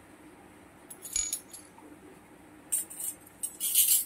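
Miniature stainless-steel toy kitchen utensils clinking against one another as one is set down in a pile: a short clink about a second in, then a run of light jingling clinks near the end, the last the loudest.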